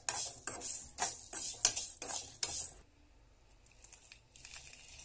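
Metal spatula stirring dry chana dal, urad dal, spices and dried red chillies being dry-roasted in an aluminium kadai: quick, repeated scraping and rattling strokes of metal on the pan with the grains shifting. The strokes stop abruptly about three seconds in, leaving only faint clicks.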